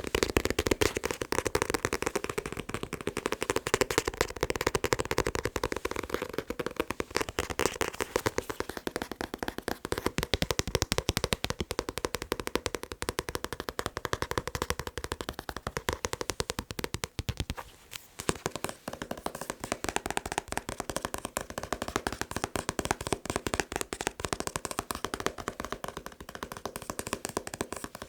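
Fast, continuous tapping on a manga book, many quick taps a second, with a brief pause about two-thirds of the way through.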